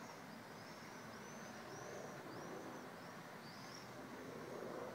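Birds calling: a quick run of short, high chirps, about two a second, over faint steady background noise.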